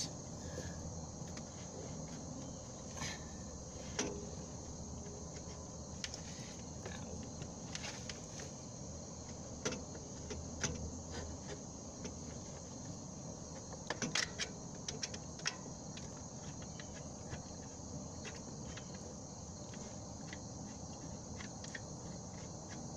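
Steady chirring of crickets, with scattered metallic clicks and clinks from handling the alternator and its mounting bolt, including a quick cluster of clinks about two-thirds of the way through.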